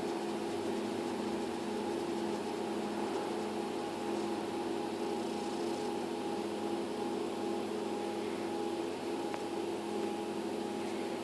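A steady mechanical hum, several fixed tones over an even hiss, unchanging throughout.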